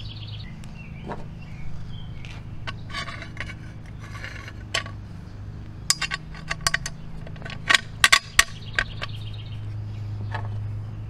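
Small steel parts (a hex bolt, self-locking nuts and a cam) clinking and scraping on a wooden bench as they are picked up and fitted together. A quick run of sharp clinks comes in the second half. A steady low hum runs underneath.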